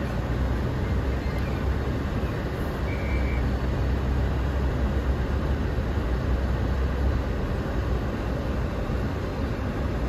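Steady low rumble heard inside the cab of a 2021 Toyota Tacoma driving slowly through fresh snow in two-wheel drive. Its rear BFGoodrich KO2 all-terrain tyres, worn to about half tread, are spinning for grip in about 3 inches of snow.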